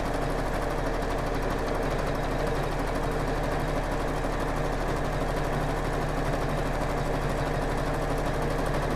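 Juki domestic sewing machine running steadily at speed, its needle stitching elastic onto a bra band without a break.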